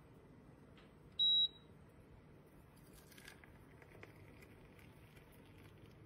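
A single short, high electronic beep from the SAKI Turkish coffee maker about a second in, followed by faint clicks of the coffee pot being handled.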